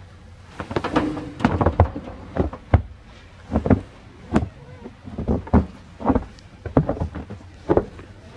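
Footsteps crunching on fresh snow: irregular short crunches, about one or two a second, starting about half a second in.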